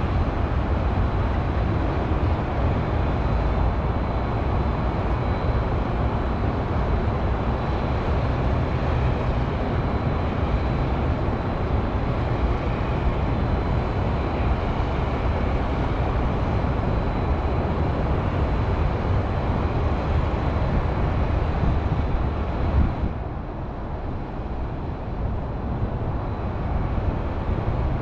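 Steady hum of highway traffic, a dense low rumble that dips noticeably about 23 seconds in and builds back up near the end.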